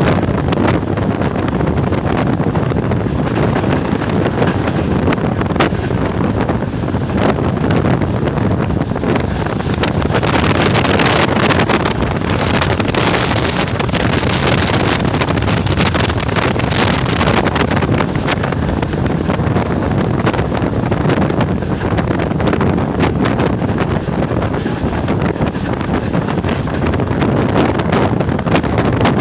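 Wind buffeting the microphone held out of a moving passenger train, over the steady rumble of the coach running along the track. The wind noise swells for several seconds midway.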